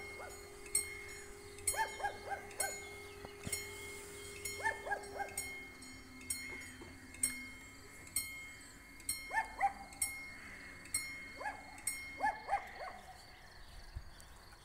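Level-crossing warning bell ringing over and over at an even pace while the barriers are down, the sign that a train is due. Quick runs of four or five short high chirps come in between every couple of seconds.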